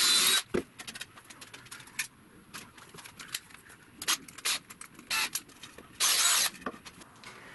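Workbench handling noises: three short bursts of scraping hiss, about half a second each, with scattered clicks between them, as a cordless drill and a plywood strip are handled.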